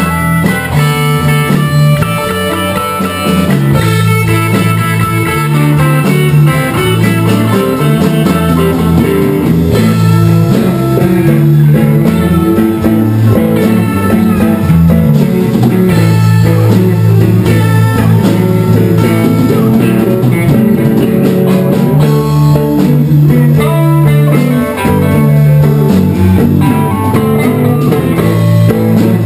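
Live band playing: electric bass, electric guitar and drum kit together, with the bass notes loud and prominent throughout.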